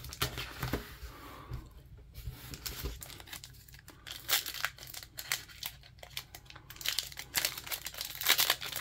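Foil wrapper of a trading card pack being torn open and crinkled by hand: irregular crackling rustles, busiest near the end.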